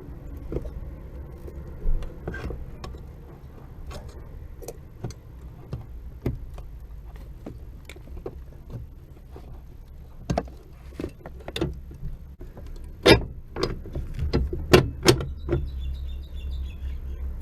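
Scattered clicks and knocks from hand work on a car's clutch pedal assembly and clutch cable, over a low steady hum; the sharpest knocks come in a quick cluster about two-thirds of the way through.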